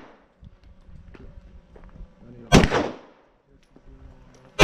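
A single gunshot about halfway through, a sharp crack that rings out for about half a second, with a second shot starting just as it ends.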